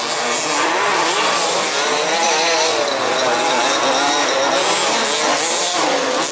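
Several 1/5-scale off-road RC race cars' small two-stroke petrol engines racing together, revving up and easing off in overlapping rising and falling whines.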